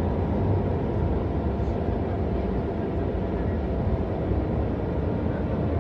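Mercedes-Benz O405NÜ bus engine running with a steady low rumble and a faint steady whine, with no revving.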